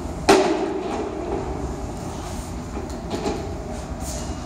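A sharp knock about a third of a second in, ringing on in the tiled station, then a few lighter knocks and scrapes from a broom and dustpan on the platform. A steady low station rumble runs underneath.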